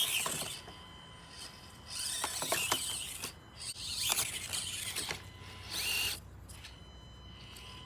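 The small brushed electric motor and gear drivetrain of an Axial SCX24 1/24-scale rock crawler whining in four short bursts as the throttle is worked, the pitch rising and falling with each burst.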